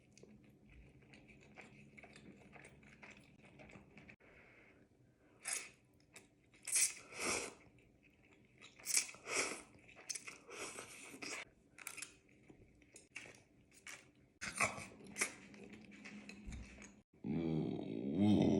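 A person chewing food close to the microphone, with repeated short wet mouth smacks and clicks. Near the end comes a louder, low drawn-out sound.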